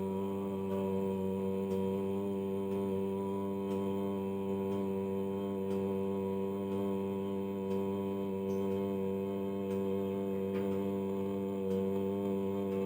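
Om mantra drone: one low chanted tone with a rich stack of overtones, held at a steady pitch without a break, with faint ticks about once a second.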